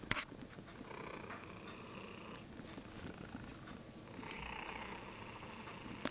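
Domestic cat purring right against the microphone, in two long swells, with a sharp click from the cat touching the phone at the very start.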